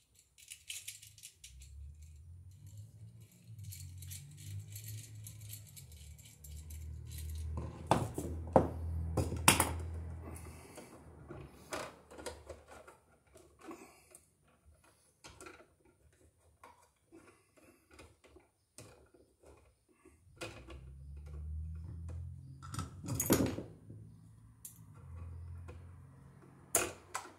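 Hand tools and stiff copper building wire being handled at an electrical box: scattered small metallic clicks and clinks, with a few sharper snaps about eight to ten seconds in and again about 23 seconds in, over a dull low rumble of handling in two stretches.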